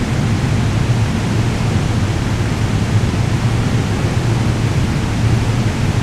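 Steady loud rumble and hiss of an underground railway station, with a constant low hum underneath that neither rises nor fades.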